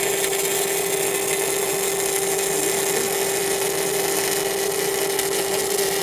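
Electric arc welding on steel boiler plate and pipe: the arc gives a steady, even hiss with no breaks, over a constant low hum.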